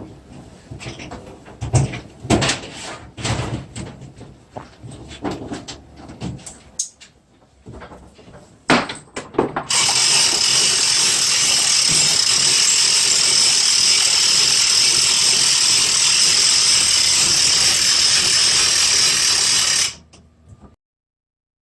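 Metal clanks and ratchet-like clicks from a hand crane and its rigging, then a steady, loud mechanical whir for about ten seconds that stops suddenly.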